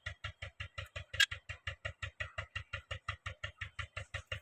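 Steady, rapid, machine-even ticking beat, about six or seven ticks a second, with one sharper click about a second in.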